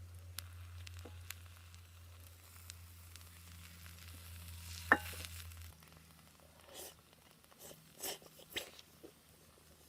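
Yakisoba faintly sizzling in a hot iron skillet, with a few light metal clicks; the loudest is a sharp clink with a brief ring about five seconds in. A few short rustles follow near the end.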